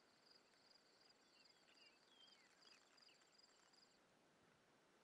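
Faint cricket trilling, a steady, finely pulsed high trill that cuts off suddenly near the end, with a few faint short high chirps over it.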